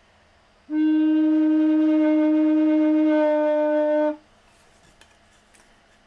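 Large wooden Renaissance recorder playing one long low note of about three and a half seconds. It is a wolf-tone note, and the sticker placed inside the instrument to add weight has not taken out the warble.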